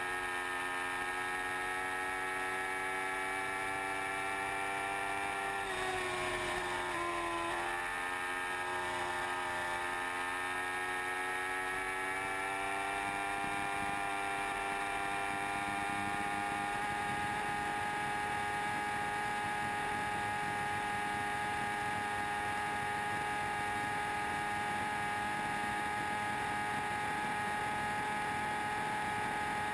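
Yamaha R1's inline-four engine held at high revs at very high road speed, a steady whine over wind rush. Its pitch dips and climbs back about six to eight seconds in, then holds level.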